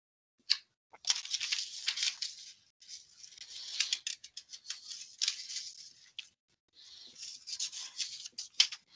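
Paper rustling and crinkling as a notepad page is handled and flipped over: a scratchy, crackly stretch with a short lull about six seconds in.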